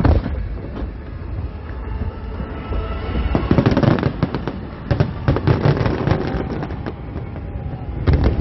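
Fireworks display: a loud bang at the start, then rapid crackling and popping of bursting shells, densest about three to four seconds in and again from about five to seven seconds.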